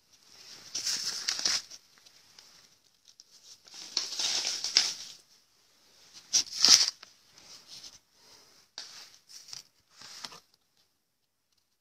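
Paper banknotes rustling as handfuls of notes are dropped and flutter down onto a pile of money. The rustling comes in several bursts, the sharpest about two thirds of the way in, then a few shorter ones, and it stops about ten and a half seconds in.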